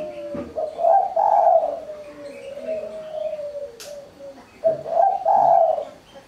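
Spotted dove (tekukur) cooing, two phrases about four seconds apart, in the crisp voice its owner calls mersik. There is a faint click near the end of the first phrase.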